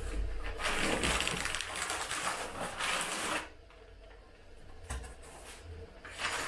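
Plastic wrapping rustling and crinkling as a plastic-wrapped radio antenna is slid out of a cardboard tube. It lasts about three seconds, then goes quieter, with one light knock about five seconds in.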